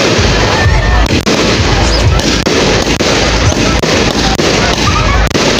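Fireworks firing shot after shot: a loud, rapid string of launch bangs and bursts, with little pause between them.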